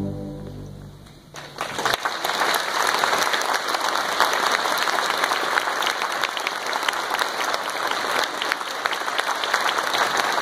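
A concert band's final held chord dies away, and about a second and a half in an audience starts applauding, with many hands clapping steadily.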